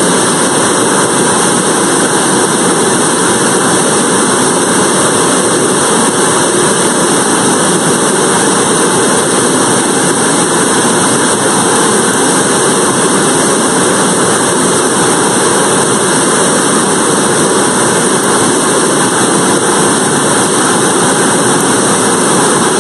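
BPM-5 bipropellant rocket engine firing on a static test stand: a loud, steady rushing noise that holds unchanged throughout its burn.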